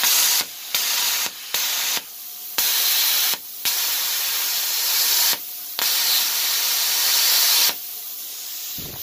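Velt Cut 60 plasma cutter's contact-start torch cutting steel: the arc hisses loudly in about six bursts, cutting out and restarting each time with a faint click. Near the end the arc stops and a quieter hiss of air carries on.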